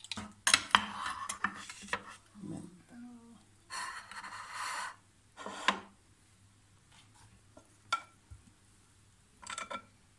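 Ceramic bowls and a plate knocking and being shifted on a tabletop, with a metal spoon clinking against them, in irregular knocks and a couple of short rustling stretches.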